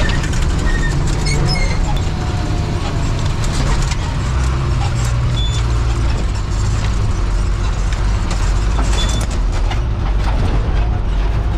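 Bus engine running with a heavy, steady low drone, heard from inside the cabin, while the body clatters and knocks over a rough dirt road.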